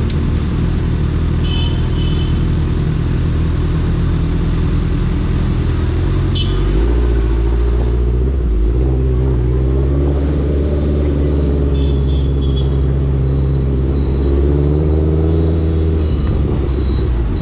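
Suzuki Hayabusa Gen3's 1340 cc inline-four running through an Ixil aftermarket exhaust on the move. The note drops in pitch about six and a half seconds in, then rises and falls with the throttle.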